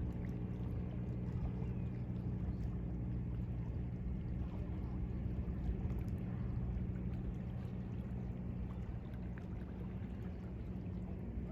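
Boat engine running with a steady low drone that drowns out the sound of the waves.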